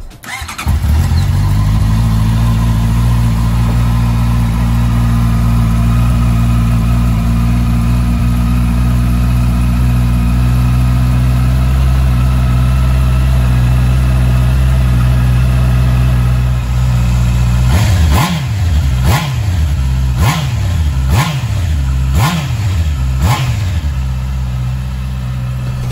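Honda CBR650R's inline-four engine starts and settles into a steady idle, then is revved in about six quick blips near the end, each falling straight back to idle.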